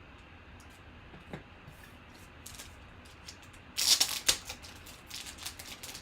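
Sports trading cards being handled and flipped: scattered light clicks and rustles, with a louder quick flurry of card flicks about four seconds in, then a run of lighter ticks.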